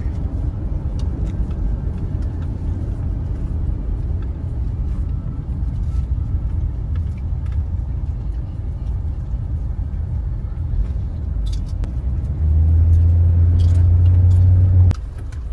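A car driving, heard from inside the cabin: a steady low rumble of engine and road noise. Near the end it grows louder for about two and a half seconds, then drops back suddenly.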